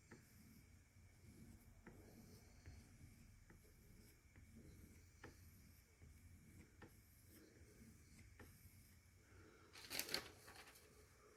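Mostly near silence with faint scattered ticks, and about ten seconds in a brief papery rasp: a freshly sharpened whittling knife slicing through a sheet of paper to test its edge.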